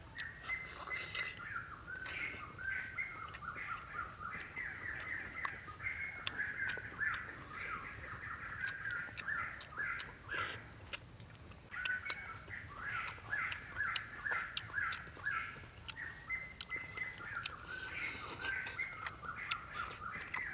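Forest ambience: birds calling in quick repeated notes over a steady high-pitched hum, with occasional short clicks. The calls pause briefly about halfway through.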